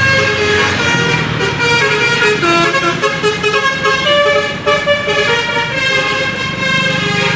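Telolet bus horn playing a tune of several tones that keep jumping in pitch, over the low hum of bus and truck engines.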